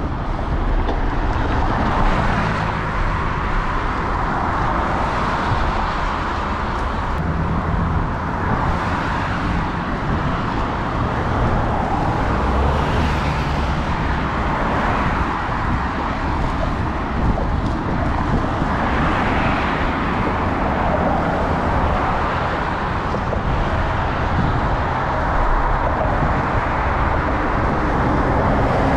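Road traffic on a wet road: cars passing one after another with tyre hiss that swells and fades every few seconds over a steady low rumble.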